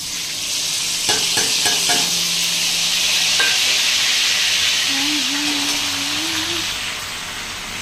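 Garlic-ginger-chilli paste hitting hot oil in an aluminium kadhai and sizzling loudly as it is stirred with a metal slotted spatula. It bursts into a sizzle at once, with a few light metal clicks of the utensils against the pan about a second in, and eases a little toward the end.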